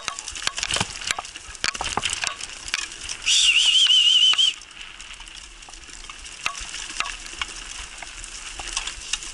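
Wheels of a dog-drawn rig rolling over a leaf-strewn dirt trail: steady crunching with many sharp clicks and rattles. About three seconds in, a loud warbling whistle sounds for just over a second.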